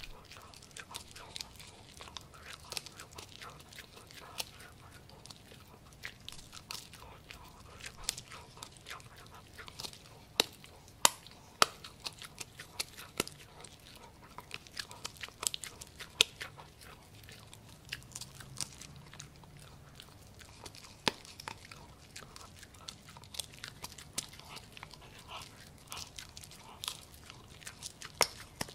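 A Pomsky puppy chewing a piece of pork: irregular crunching and biting clicks, close up, the loudest crunches about halfway through.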